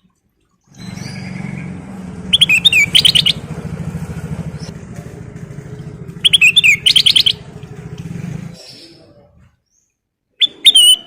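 Kutilang emas bulbul singing in three short bursts of quick, repeated whistled notes. Beneath the first two bursts runs a steady low rumble of an idling engine that stops shortly before the last burst.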